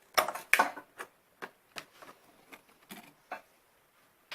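A multimeter being set down and handled on the bench: two sharp knocks about a quarter and half a second in, then a string of lighter, irregular clicks and ticks.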